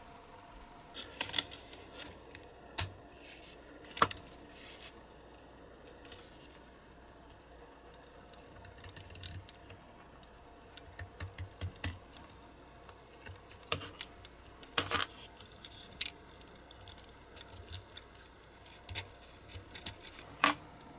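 Scattered sharp clicks and short scrapes of small hard parts being handled on a work surface, with the sharpest clicks about four seconds in and near the end.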